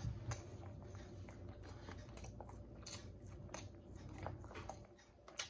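A person chewing food close to the microphone, quiet wet mouth clicks and smacks coming in a quick, uneven series.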